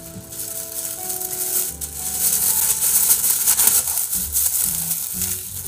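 Thin plastic disposable glove crinkling and rustling as it is unfolded and pulled onto a hand, loudest in the middle, over soft background music with held notes.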